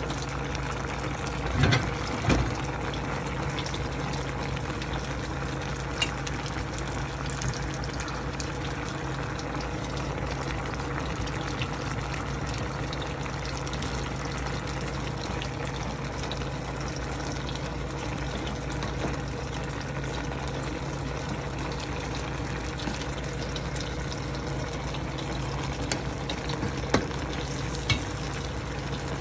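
Pot of vegetable broth with saluyot (jute) leaves boiling on a gas stove: a steady bubbling noise under a low steady hum, with a few sharp clicks, the loudest two about two seconds in and two more near the end.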